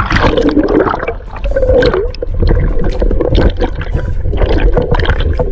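Water splashing and gurgling close to the microphone, with a dense run of irregular splashes over a heavy low rumble.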